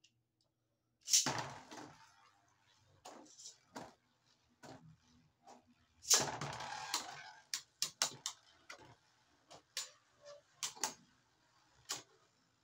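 Two Beyblade Burst tops launched one after the other into a plastic stadium, each launch a rasping zip of the ripcord launcher, about five seconds apart. Then the spinning tops clack sharply against each other and the stadium walls, many times.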